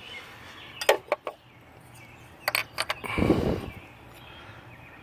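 Metal car parts clinking and clicking as they are handled: a few sharp clicks about a second in, another quick group around two and a half seconds, then a short louder rustle and clatter just after three seconds.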